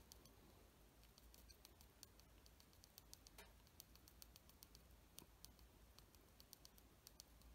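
Near silence, with faint, irregular tiny clicks of a pencil point tapping and scraping around the edge of a small plastic model propeller spinner as chipping marks are added.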